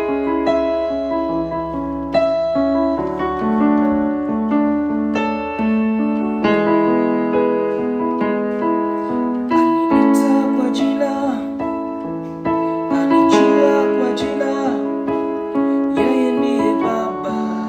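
Piano playing a slow melody over held chords, notes sounding and sustaining one after another.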